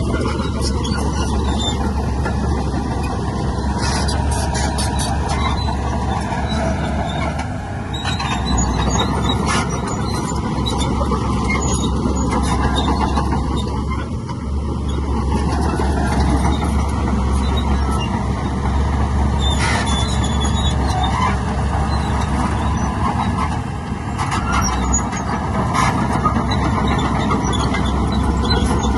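Heavy earthmoving machinery at work: diesel engines of a bulldozer and dump trucks running steadily with a deep rumble, with sharp metallic clanks now and then.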